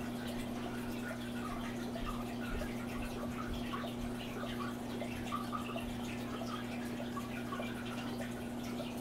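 Aquarium water trickling and dripping, many small plinks and bubbles over a steady low hum.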